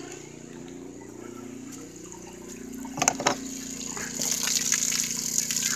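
Water gushing from a garden hose fed by a deep well pump, at good pressure. It starts as a faint steady hum, there are two short knocks about three seconds in, and about four seconds in the hissing spray of water gets much louder.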